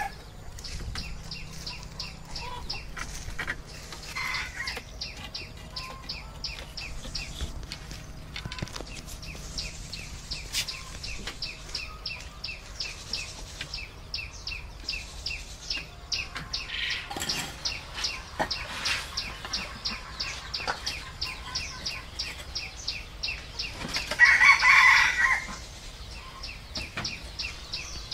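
Domestic rooster crowing, loudest about three-quarters of the way through, with chickens clucking. Behind them runs an even, fast high ticking, about four ticks a second.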